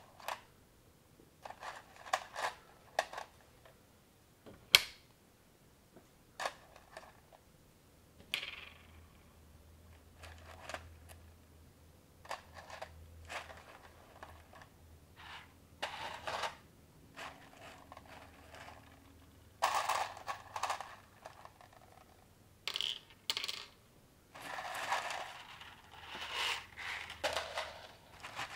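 Plastic LEGO-compatible bricks and Technic parts being handled and fitted: scattered sharp clicks and snaps, one much louder click about five seconds in, and busier clattering of loose pieces about twenty seconds in and again near the end.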